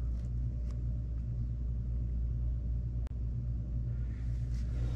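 Steady low hum with a single faint click about three seconds in.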